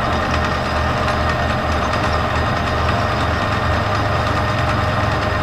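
Metal lathe running steadily, with a low pulsing hum under a broad machine whir.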